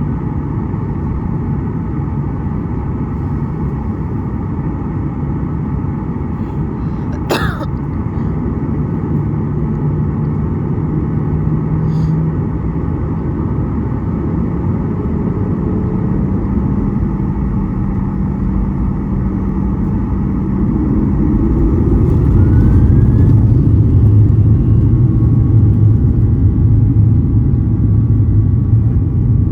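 Boeing 737 jet engines running, heard from inside the cabin as a steady rumble with a high hum. There is a sharp knock about seven seconds in. From about twenty-two seconds the engine noise rises and grows louder.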